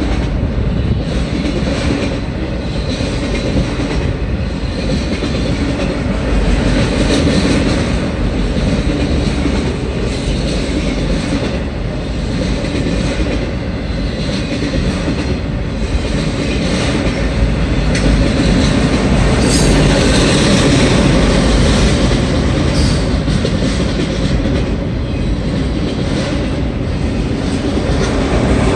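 Freight train of autorack cars rolling past over a grade crossing, steel wheels clattering with a beat that repeats about every two seconds, heard from inside a car.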